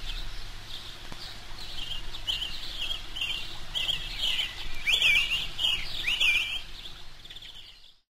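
Small birds chirping, a run of quick high chirps that gets louder past the middle, then fades out to silence near the end.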